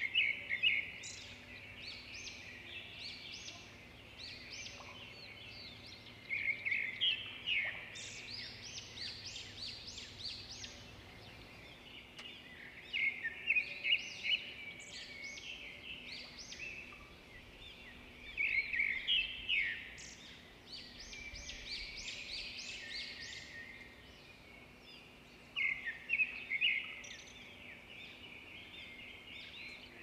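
Songbird singing: a quick run of high chirping notes about every six seconds, with fainter chirps between the phrases.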